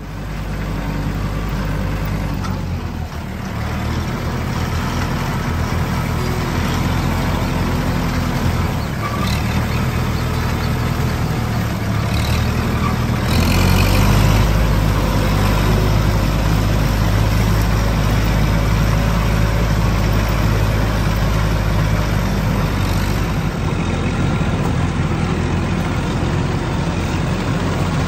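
A vehicle engine running steadily at a low, even pitch, getting a little louder about 13 seconds in.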